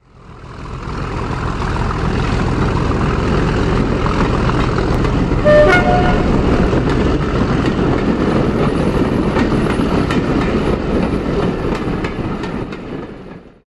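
Diesel locomotive running with a steady rumble that fades in over the first second; about five and a half seconds in it gives a short two-tone horn blast, low note then high. The rumble fades out near the end.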